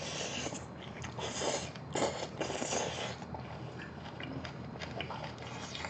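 A person eating braised monkfish with bean sprouts close to the microphone: several loud hissy slurps as the hanging sprouts are sucked in over the first three seconds, then quieter wet chewing.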